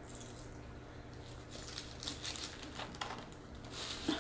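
Faint crinkling and rustling of paper food wrappers and napkins being handled at the table, with a few soft scattered ticks, over a low steady hum.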